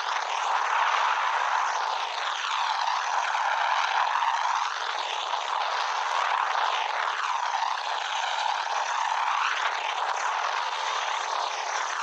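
Steady engine and rotor noise of a helicopter in flight. It sounds thin, with no deep rumble, and its tone slowly sweeps up and down.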